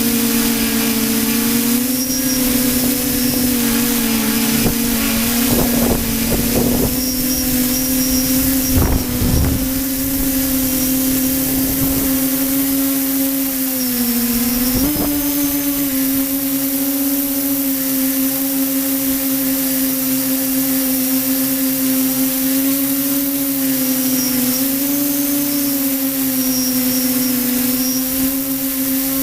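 Radio-controlled model aircraft's engine running steadily in flight, its pitch wavering slightly and stepping up about halfway through. Gusts of wind buffet the microphone between about five and ten seconds in.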